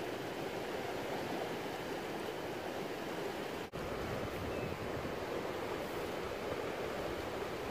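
Steady rush of a river running close by, cutting out for an instant a little past halfway.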